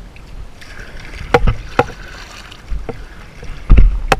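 Plastic sit-on-top kayak being paddled, with several sharp hollow knocks of the paddle against the hull, two early and two louder ones near the end, over light water noise.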